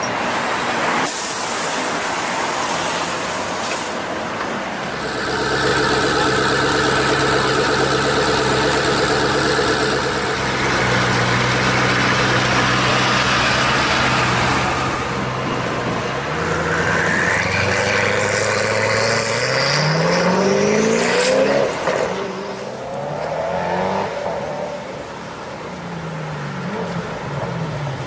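Road traffic, then from about five seconds in a Koenigsegg One:1's twin-turbo V8 runs steadily. Past the middle it revs with rising pitch several times, and near the end it rises again in short pulls as the car moves off.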